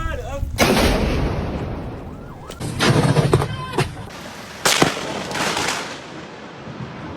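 Close lightning strikes: sharp cracks of thunder, about half a second in, a cluster of cracking around three seconds, and another sharp crack near five seconds, each rumbling away as it fades.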